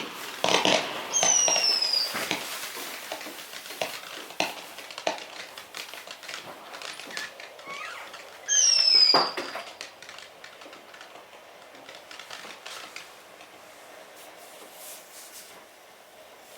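Two whistling fireworks, each a loud falling whistle about a second long, the second coming some seven seconds after the first, among scattered firework pops and crackles that thin out in the second half.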